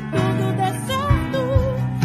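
Gospel song playing: a sung melody with vibrato over a band's sustained chords, with a couple of low drum beats.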